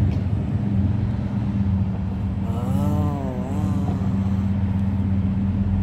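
A motor vehicle's engine running steadily close by, a low hum. About three seconds in, a brief wavering voice-like sound rises and falls over it.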